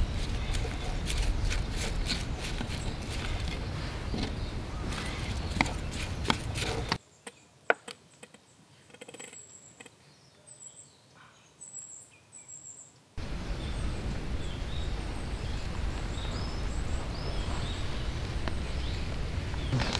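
Chopsticks stirring and clicking against a stainless steel Sierra cup over a steady outdoor noise. About seven seconds in, the sound drops to a quiet stretch with high bird chirps. About thirteen seconds in, the steady noise returns with birdsong.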